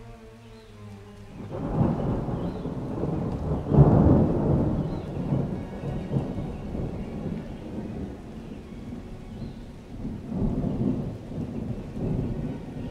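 Thunder rumbling over steady rain, swelling loudest about two and four seconds in and again near the end, with faint background music underneath.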